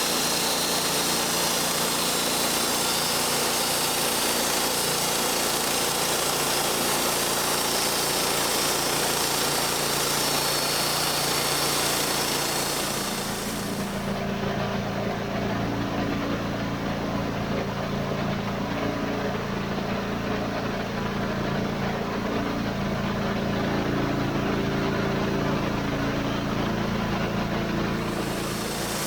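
Engine-driven sawmill cutting through a log, the engine working under load with the blade in the wood. About halfway through, the cutting noise drops away and the engine settles to a steady idle hum.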